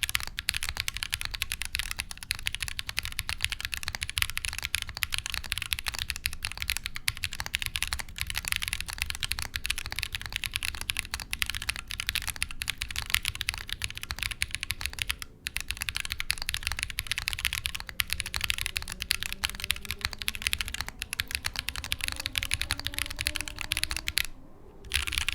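Fast continuous typing on a Bear65 gasket-mounted mechanical keyboard with lubed Holy Panda tactile switches, an aluminium plate and GMK keycaps: a dense run of keystroke clacks. It briefly dips about fifteen seconds in and stops for about half a second near the end.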